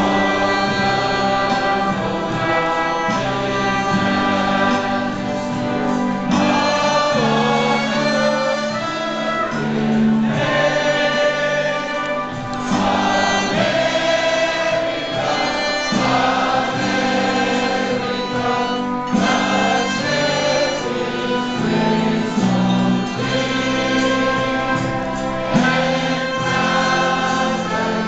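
Restaurant waiters singing together as a choir, with instrumental accompaniment underneath.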